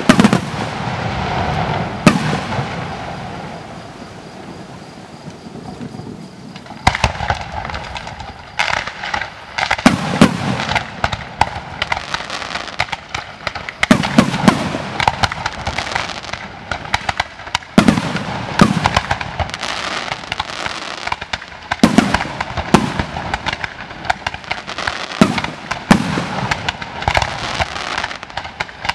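Fireworks display: rapid bangs of shells and ground-fired comets going off in volleys. The firing eases to a quieter lull a few seconds in, then resumes about seven seconds in as a dense, fast barrage.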